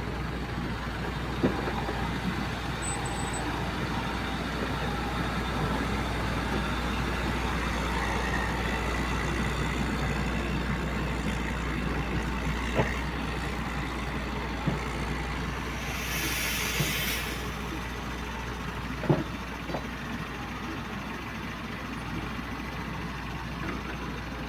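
Diesel engines of heavy earthmoving machinery running steadily, with scattered knocks and clanks. About sixteen seconds in comes a hiss of air lasting about a second.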